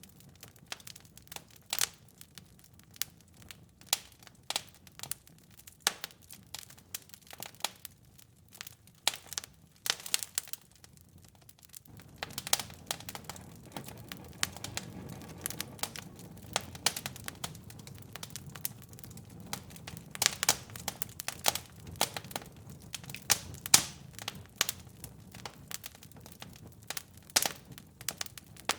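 Wood fire crackling in a fireplace: irregular sharp pops and snaps, several a second, some much louder than others. About twelve seconds in, a low steady rushing comes up underneath the crackle.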